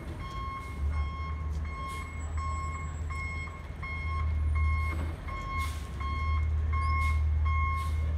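Garbage truck's backup alarm beeping steadily, about one and a half beeps a second, as the truck reverses, over the low steady running of its engine.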